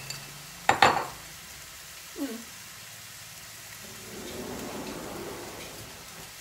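Kitchenware clatter: a few sharp clacks of a bowl or utensil against the cookware just under a second in, then a short falling squeak, over a faint sizzle from chicken in a hot cast iron skillet.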